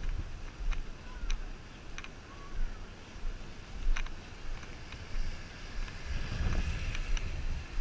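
Strong wind gusting on the microphone as a low rumble, with a few sharp footstep clicks on the pavement at a walking pace. A swell of rushing noise rises near the end.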